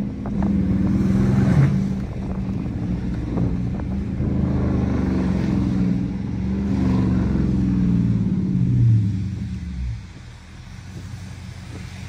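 Dodge Charger R/T's 5.7-litre Hemi V8 heard from inside the cabin as the car drives off, its note shifting up and down for about ten seconds. Then the revs drop away and the engine runs quieter.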